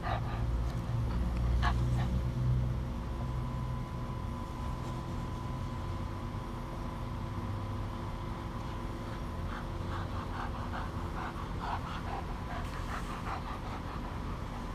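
Miniature schnauzer puppy panting in quick rhythmic breaths, about three a second, starting about ten seconds in after chasing the ball. A low rumble on the microphone is loudest in the first few seconds.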